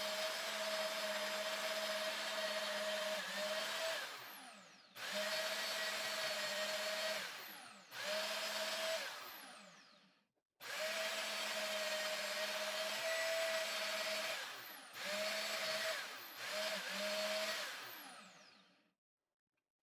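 Band saw running and cutting through a micarta handle slab, a steady motor hum with the hiss of the blade in the cut. It stops and starts several times, each time trailing off with a falling whine.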